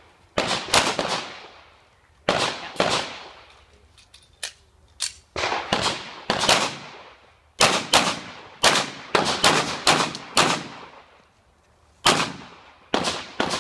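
Handgun shots fired in quick pairs and short strings, about two dozen in all, each with a short echoing tail. There are pauses of up to a second and a half between strings, the longest coming just before the last few shots.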